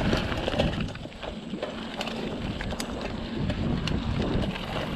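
Mountain bike rolling fast down a dirt singletrack: steady tyre noise on the dirt with scattered clicks and rattles from the bike, and wind buffeting the microphone.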